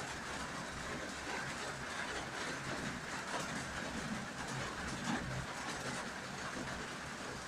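Steady rain falling, a continuous even hiss with a low rumble underneath.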